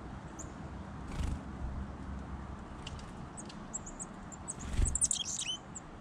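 Small songbirds calling with short, high, thin chirps scattered throughout, building to a quick burst of loud high chirps that fall in pitch near the end. Two brief low rushes of sound come about a second in and just before the burst.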